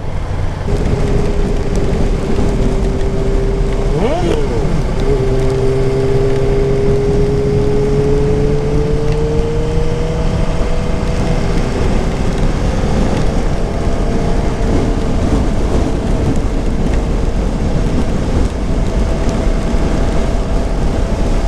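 Motorcycle engine running under way over a constant low rumble, with a quick rev blip about four seconds in, then its pitch rising slowly as the bike accelerates before holding fairly steady.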